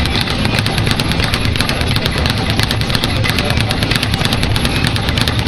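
Speed bag being punched in a fast, steady rhythm, the leather bag rapping against its rebound board several times a second.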